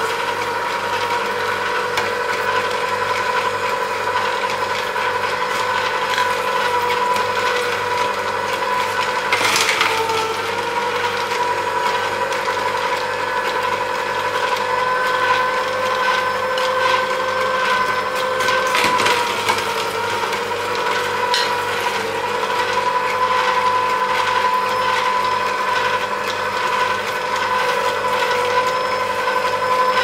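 Vertical slow masticating juicer running: its geared motor whines steadily while the auger crushes and squeezes pieces of apple and carrot, with a couple of short louder knocks, about a third and two thirds of the way in.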